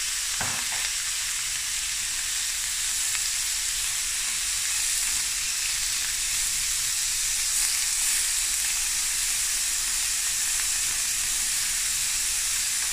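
Raw prawns frying in a little coconut oil in a hot stainless steel pan: a steady, high sizzle, with a brief knock about half a second in. The prawns are turned with a wooden spatula.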